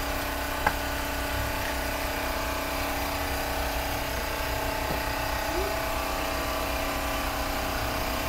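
Steady drone of an engine-driven generator (a "planta") running, with a short click under a second in.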